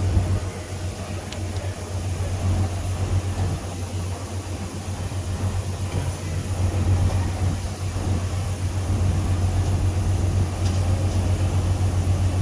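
A steady low mechanical drone, like an engine or machine running.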